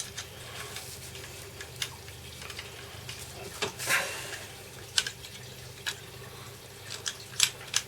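Scattered light clicks and small rattles from a Parkside PET 25 C2 electric stapler's magazine being handled, as the nails are taken out and staples loaded, over a low steady hum.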